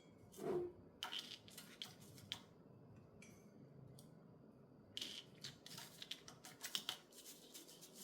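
Fine hand sanding of a piece of jewellery: short, faint scratchy strokes in two runs, with a soft handling bump about half a second in.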